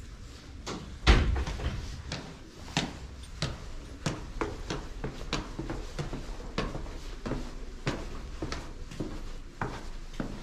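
Footsteps going down stairs at an even pace, about one and a half steps a second, with one heavier thump about a second in.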